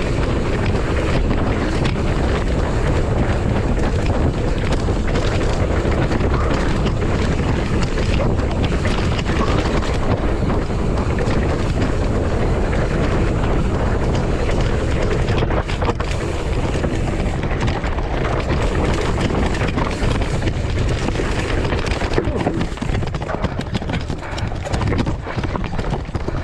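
Heavy wind buffeting a camera microphone, mixed with the constant rumble and small knocks of a mountain bike rolling fast over rough ground.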